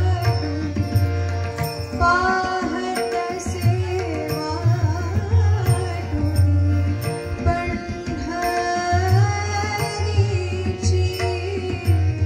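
A woman singing a Marathi abhang, a devotional song, in a gliding melodic line, with a harmonium and tabla accompaniment.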